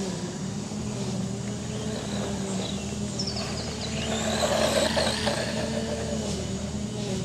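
Brushed electric motor and drivetrain of an FTX Tracer RC buggy running out of view on a dirt track. Its pitch wavers with the throttle, and it gets louder about four seconds in.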